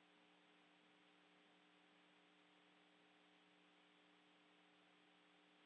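Near silence: a faint steady hiss with a low hum.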